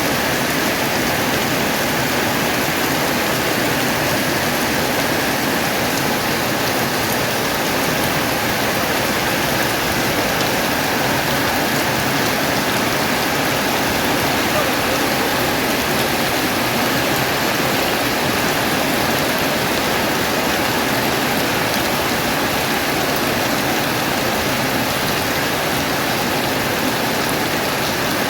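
Heavy rain falling steadily, an even, unbroken hiss of rain.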